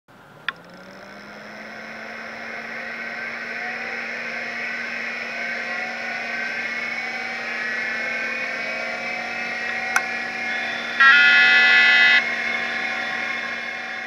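A machine powering up: a click, then a whine that rises slowly as its fans spin up over a steady hum. Another click comes about ten seconds in, followed by a loud beep lasting about a second.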